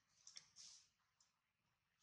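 Very faint, thin high-pitched squeak from a newborn macaque, preceded by a couple of small clicks, with one more faint click a little after a second in.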